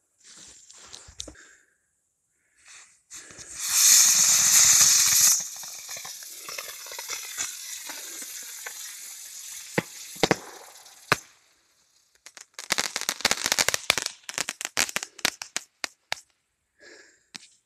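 Homemade girandola's rocket motors igniting with a loud rushing hiss, settling into a quieter steady hiss with a few sharp pops. Then a rapid run of crackling pops, with a few more near the end.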